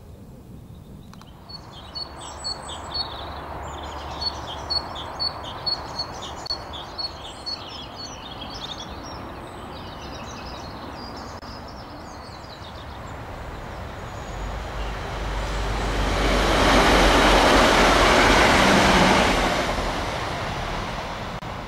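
A diesel multiple-unit passenger train crossing a bridge: its noise swells over several seconds to a loud peak, then fades near the end. Before it, a bird calls repeatedly, about two high notes a second, over a steady low background rumble.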